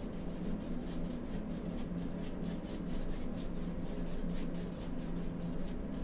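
Large paintbrush scrubbing acrylic paint onto a stretched canvas in quick, repeated short strokes, each a soft scratchy brush sound, over a steady low hum.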